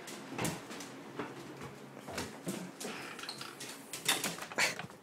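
Footsteps and scuffs of people walking out through a doorway and across a yard, with irregular knocks and clicks scattered through.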